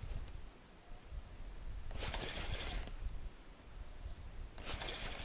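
Spinning reel being cranked in short spurts of just under a second, twice, with pauses between: the stepped retrieve of a jig. A low rumble runs underneath.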